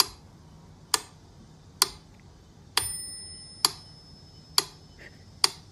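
Sharp ticks at an even pace, about one a second, seven in all. One a little under halfway through rings on with a clear bell-like tone for about a second.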